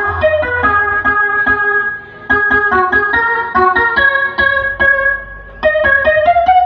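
DJ remix music: an electronic organ-like keyboard melody of quick, short stepping notes over a low bass. It drops out briefly twice.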